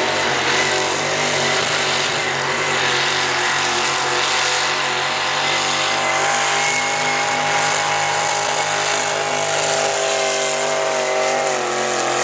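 Big-block engine of a rail-frame pulling tractor running hard under load as it pulls the sled, its pitch holding mostly steady with a slight waver near the end.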